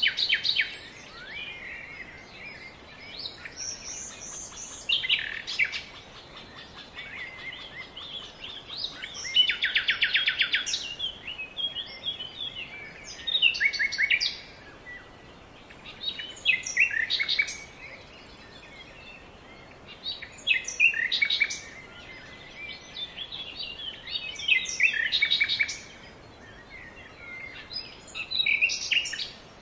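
Songbirds singing: short phrases of high chirps and quick trills, repeating every few seconds over a faint steady background hiss.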